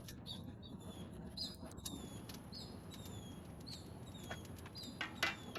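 Small birds chirping: a string of short, high, falling chirps repeated every half-second or so, over faint background noise.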